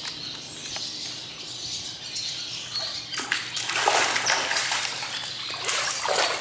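Hooked channel catfish thrashing at the water's surface as it is reeled in. The splashing is light at first and turns into loud, repeated splashes from about three seconds in.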